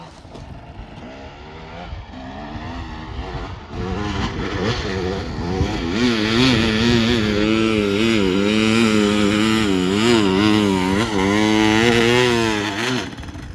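Dirt bike engine revving hard on a steep hill climb, its pitch rising and falling with the throttle. It grows louder over the first few seconds and cuts off near the end.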